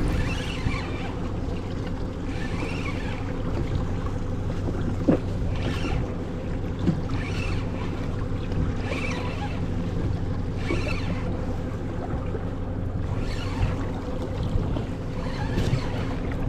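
A boat motor runs with a steady hum, with water sloshing against the hull in uneven swells every couple of seconds.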